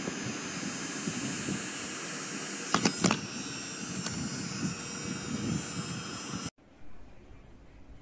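Mini desktop vacuum cleaner's small fan motor running with a steady whir, with a couple of sharp clicks about three seconds in as it is handled. The whir cuts off abruptly about six and a half seconds in, leaving faint room tone.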